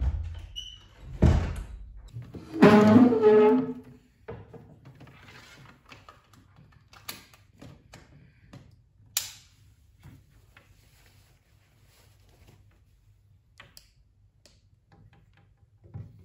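An interior door handled and shut: a thud, then a firm knock about a second in, followed by a louder drawn-out sound lasting about a second. After that, scattered light clicks and taps of a phone being handled on a wooden bedside cabinet, with another thud near the end.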